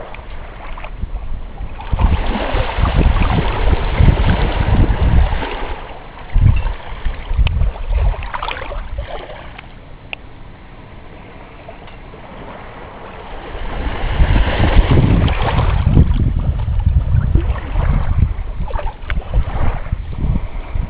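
Wind buffeting the microphone in gusts over small waves washing at the water's edge; the gusts ease off in the middle and pick up again.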